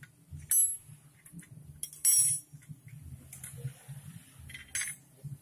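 Steel spanner clinking on the bolts and steel of a tractor clutch pressure plate as the pressure-plate bolts are tightened: three sharp metallic rings, about half a second in, the loudest at about two seconds, and one near the end.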